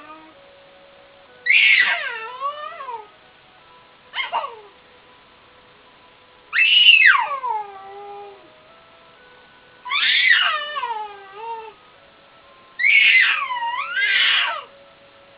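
A pet squeaking in high cries that each slide steeply down in pitch, six times, with the last two close together near the end.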